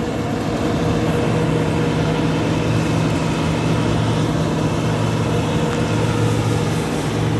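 Combine harvester's diesel engine and threshing machinery running steadily, a constant low drone with a steady higher hum.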